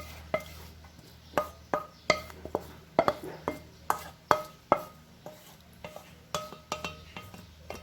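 A bowl and utensils clinking and knocking together while the bowl is washed: a dozen or so sharp clinks, many leaving a short ringing tone, coming in an uneven run.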